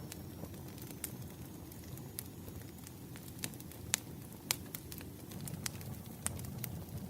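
Campfire burning: a low, steady rumble of flames with sharp crackles and pops scattered through it. The loudest pops come about four and four and a half seconds in.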